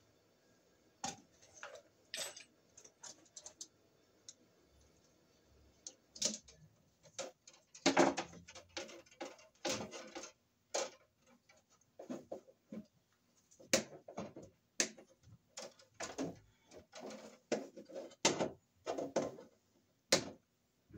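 Irregular clicks, knocks and rustling as a 10-gauge copper cable and its wires are handled and pushed into a metal breaker panel. Sparse at first, busier from about six seconds in.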